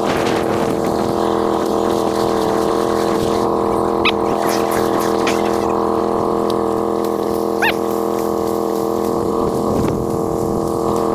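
Polaris Sportsman 850's parallel-twin engine idling steadily. Two short high chirps cut through it about 4 and 7.5 seconds in.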